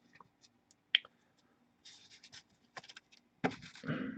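Trading cards being handled and slid across a stack: faint scrapes and light clicks, with a sharper click about a second in and a louder scuffle of card on card near the end.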